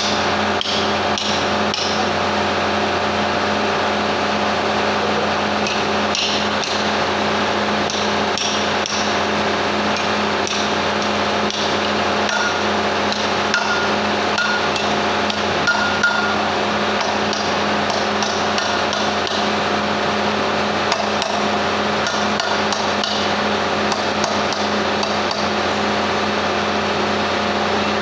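Irregular hammer taps and knocks on metal parts during a lorry gearbox repair, over a steady machine hum.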